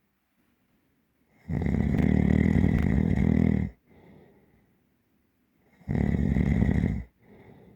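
Deep, heavy snoring: two loud snores, the first about two seconds long and the second about half as long, each followed by a much softer breath.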